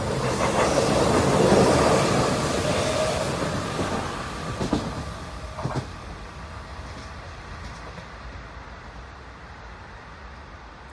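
Seoul Metro electric multiple-unit train running past and moving away: the noise swells over the first two seconds and then fades steadily. Two sharp clicks come about five seconds in, leaving a low steady noise.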